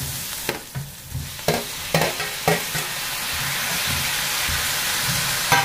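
Spatula scraping and knocking against a kadhai as guar beans and onion are stirred and fried, with a few separate strokes in the first half. From about halfway a steady sizzle builds as chopped tomatoes go into the hot pan.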